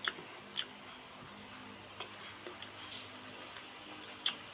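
Close-up eating sounds of crisp green mango being bitten and chewed: a few short, sharp crunchy clicks and mouth smacks over a faint low hum.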